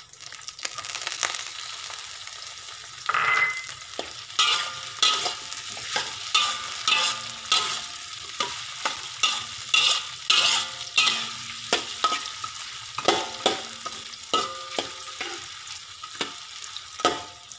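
Metal spatula scraping and clanking against a wok while stir-frying over a steady sizzle. For the first three seconds only the sizzle is heard; then the strokes begin, about two a second, the first one ringing briefly.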